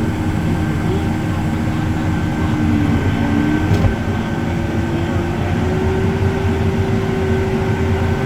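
Heavy farm harvest machinery running steadily under load, with a steady whine over a deep drone and a pitch that rises slightly about halfway through. A single brief click sounds a little under four seconds in.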